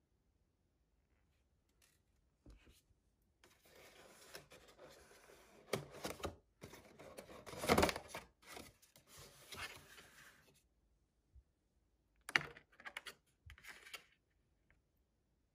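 Paper and cardboard takeaway packaging rustling and crinkling as a cardboard cake box is unfolded and opened, from about three seconds in to about ten. A few short taps and knocks of the box near the end.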